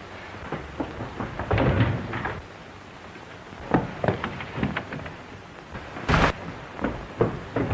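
Irregular knocks and thuds over a steady hiss, bunched into two clusters, with a short loud crack about six seconds in.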